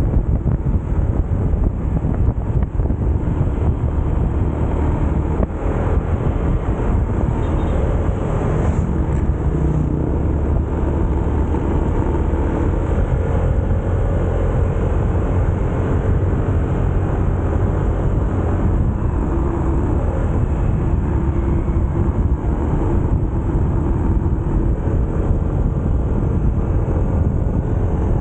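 Motorcycle under way at road speed: the engine runs steadily under heavy wind rumble on the microphone.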